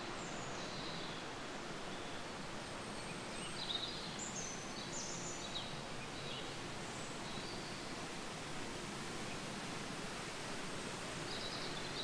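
Steady rush of water from a mountain stream or waterfall, with birds giving short high chirps now and then, a cluster of them about 3 to 5 seconds in.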